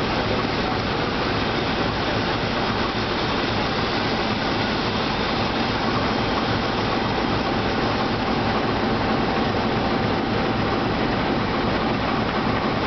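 Steady noise of a freight train of box wagons rolling along the rails, with the steady running of a CC201 (GE U18C) diesel-electric locomotive close by.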